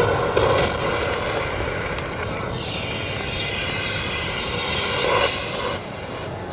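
Large-scale RC aerobatic plane's gasoline engine and propeller running at speed, the pitch sweeping up and down as the plane manoeuvres, then easing off near the end.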